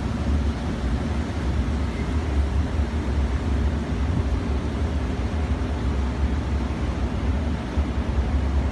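Steady low rumble of city background noise, with a faint even machine hum over it.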